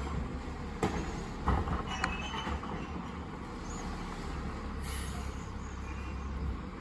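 Garbage truck engine running low and steady, with a few sharp knocks in the first couple of seconds.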